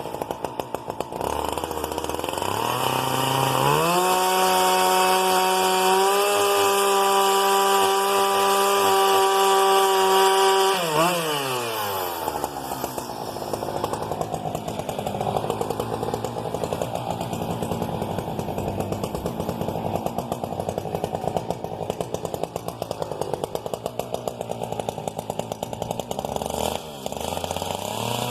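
Husqvarna 395XP's big single-cylinder two-stroke chainsaw engine revs up to full throttle over a few seconds and holds a high, steady pitch for about seven seconds. It then drops back to a lumpy, pulsing idle for over a quarter of a minute, and revs up again near the end.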